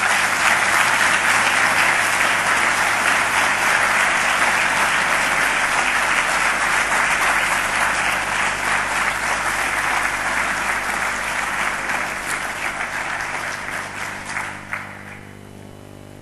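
Large audience applauding steadily, fading and stopping about fifteen seconds in.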